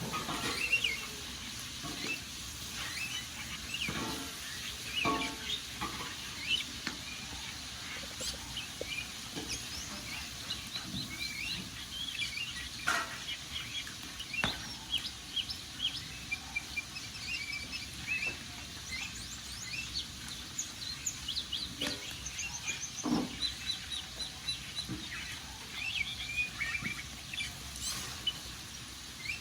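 Wood fire crackling, with scattered sharp pops, under many small birds chirping and twittering continually.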